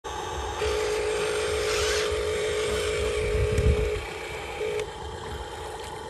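Electric drive motor and gearbox of a Huina RC dump truck whining steadily as the truck drives, stopping about four seconds in and giving a short burst again near five seconds. A low rumble under it peaks about three and a half seconds in.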